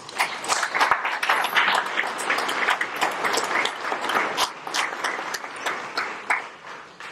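Audience applauding, many hands clapping together; the applause starts suddenly and dies away near the end.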